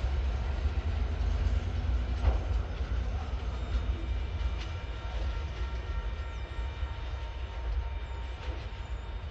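Container freight train wagons rolling away along the track: a low, steady rumble that slowly fades, with one sharp clack about two seconds in.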